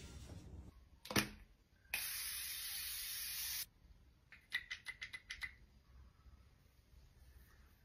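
Close-up handling sounds: one sharp knock, then a steady spray-like hiss lasting about a second and a half, then a quick run of about eight light, faintly ringing taps.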